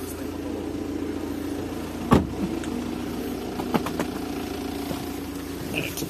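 Car engine idling steadily while it warms up after a start. There is one sharp click about two seconds in and a few lighter clicks near the four-second mark.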